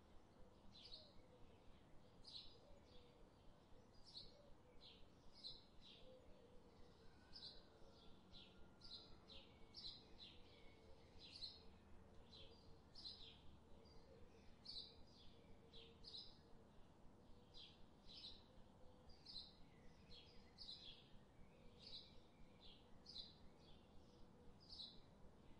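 Faint bird chirping: short, high chirps repeated about two to three times a second, over a faint low hum.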